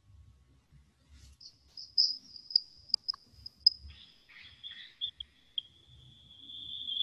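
Metal singing bowl rubbed around its rim: a thin high ringing tone with bright, irregular chattering ticks. About four seconds in it drops to a lower ringing tone that grows louder toward the end.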